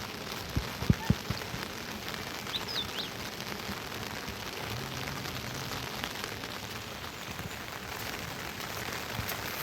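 Steady rain falling, with a few sharp drops or knocks about a second in and a couple of faint high chirps around three seconds.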